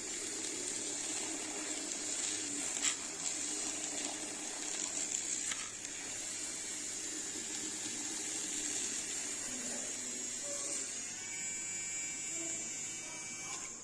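Small handheld electric frother whirring steadily as it whisks coffee. Toward the end a thin motor whine comes through, and the sound cuts off suddenly at the end.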